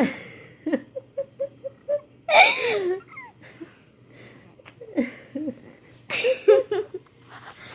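A woman laughing in breathy bursts: a quick run of short giggles about a second in, then louder peals of laughter near the middle and again near the end, with quiet pauses between.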